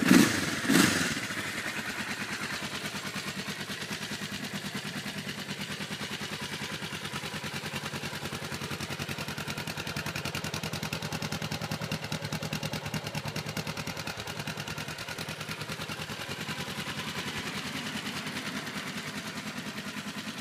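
Yamaha TX500's air-cooled 498 cc DOHC parallel-twin engine, revved briefly twice right at the start, then idling steadily with an even pulse.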